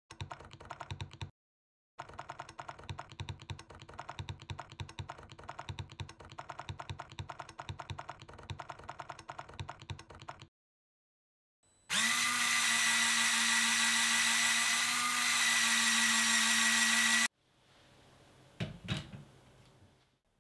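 LEGO train drive gearing with a rack-and-pinion: a fast, even clatter of small plastic clicks for about ten seconds, then a loud, steady electric-motor-and-gear whine lasting about five seconds that cuts off suddenly. A brief knock follows near the end.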